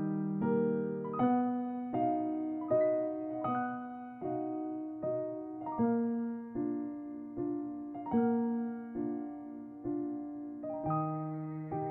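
Background music: slow, gentle solo piano, single notes and chords struck about every three-quarters of a second, each ringing and fading before the next.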